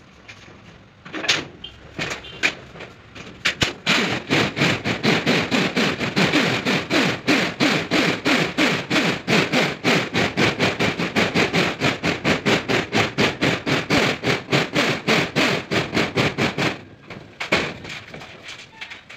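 Cordless drill/driver driving a self-drilling tek screw through corrugated metal roofing sheet: a few sharp knocks first, then the tool runs for about thirteen seconds with a steady rapid pulsing of about five beats a second, ending in a few scattered clicks.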